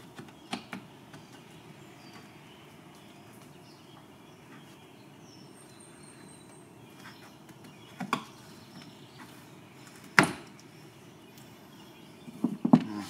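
Plastic trim tool prying at a stubborn plastic push clip on a car's trunk trim cover. A few scattered sharp clicks and knocks, the loudest about ten seconds in and a quick run of them near the end, over a quiet steady hiss.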